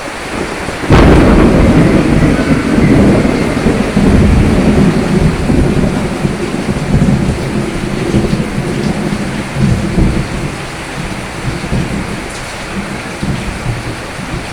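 A sudden thunderclap about a second in, followed by a long low rumble that slowly dies away, over steady rain.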